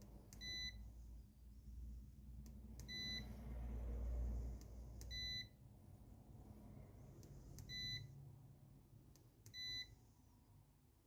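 Maxwell MP-25703 digital multimeter beeping: five short, high beeps a couple of seconds apart, each just after a click.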